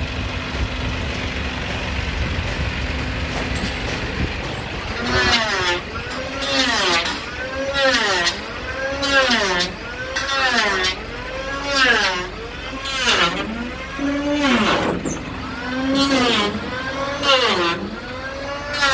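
TATA six-wheeler truck engine running steadily. From about five seconds in, a rising-and-falling tone repeats about once a second over the engine.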